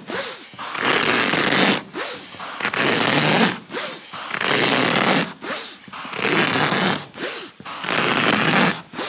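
A hand-held carpet knife slicing through woven carpet, a rasping cut in repeated strokes of about a second each.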